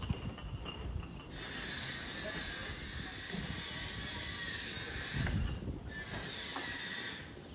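Gas hissing from the burners of a vertical döner broiler as its control knobs are turned, in two stretches that start and stop abruptly, over a few low knocks.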